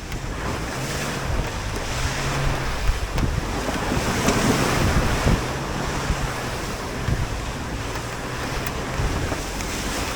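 Toyota Land Cruiser driving off-road through mud and water at low speed: the engine runs under load with its pitch stepping up and down, over a continuous rush of mud and water against the tyres and underbody, with a few dull thumps from the body and suspension.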